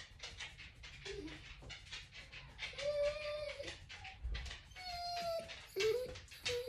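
German shorthaired pointer whining: a drawn-out whine about three seconds in, then shorter whines near the end.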